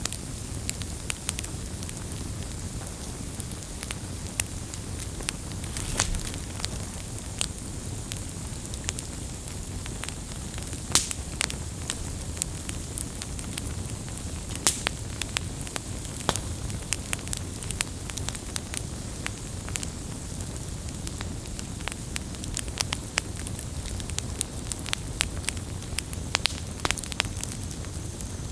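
Campfire burning steadily, wood crackling and popping in irregular sharp snaps over a low rumble of the flames.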